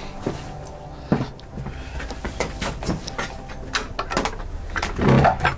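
A run of knocks and clicks of handling and movement, with a sharp knock about a second in and a louder, longer bang near the end.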